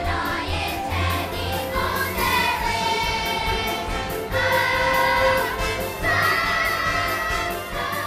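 Children's choir singing together into stage microphones over music with a steady beat, holding long notes in the second half.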